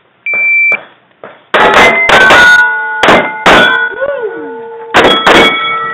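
A shot timer beeps once, then a Kimber 1911 pistol fires about six shots at steel targets, the plates clanging and ringing on after the hits.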